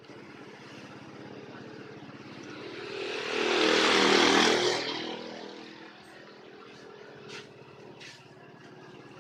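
A passing engine swells up and fades away over about three seconds, over a steady low hum.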